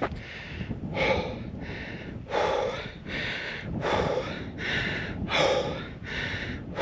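A man panting hard through his open mouth, a run of deep, quick in-and-out breaths about one and a half a second. He is winded and exhausted after a steep uphill climb.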